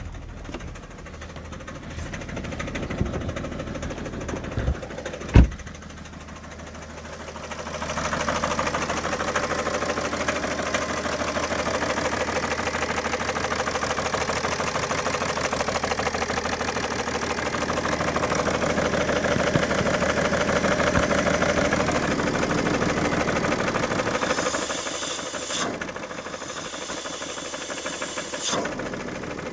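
2011 BMW 335d's twin-turbo straight-six diesel running with a bad knocking sound whose source the owner can't place. A couple of sharp knocks stand out early on, and the engine grows louder about eight seconds in and stays steady.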